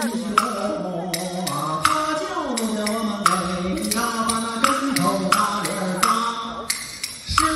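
A male voice sings a lianhualao folk tune in Mandarin, kept in time by sharp clicks of bamboo clappers about three times a second. The singing breaks off briefly near the end.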